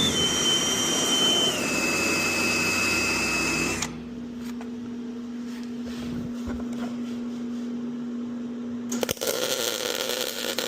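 MIG welder arc crackling and buzzing steadily for about four seconds while filling a plug weld in thin steel quarter-panel metal. A steady low hum follows, then a second, shorter burst of crackling noise near the end.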